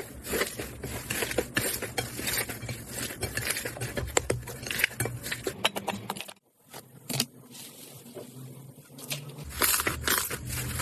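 Hands squishing and poking slime close up, with dense crackling clicks and pops. The sound cuts out briefly after about six seconds, stays softer for a few seconds, then picks up again near the end.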